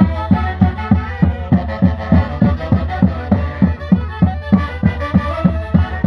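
Andean Santiago band music played live: a large bass drum beats a steady fast rhythm of about three strokes a second under saxophones playing the melody.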